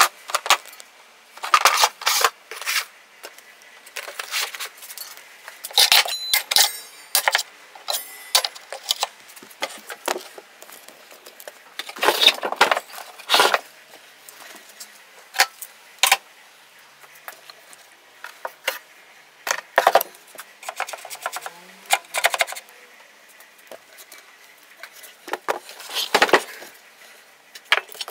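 Handling a plywood drywall toolbox: white plastic tub drawers sliding in and out and metal tools clinking and knocking against them, as a string of separate knocks and clatters with a quick metallic rattle about six seconds in.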